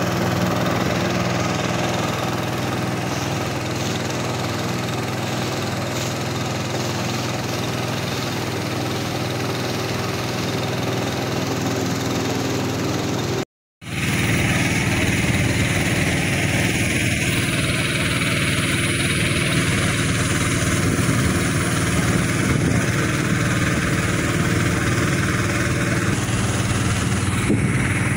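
Small boat's motor running at a steady speed, heard from on board, with water and wind noise over it. The sound drops out for an instant about halfway through, then carries on rougher.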